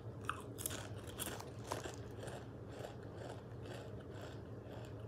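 A person biting and chewing crunchy Doritos tortilla chips: faint crunches at roughly two a second.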